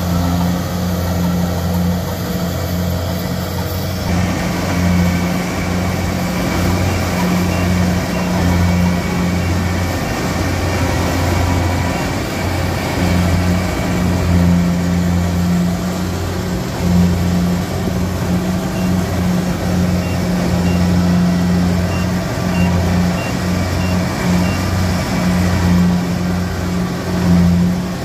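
Engine of a farm vehicle running hard and steady with an uneven pulsing note, as the vehicle struggles bogged down in mud.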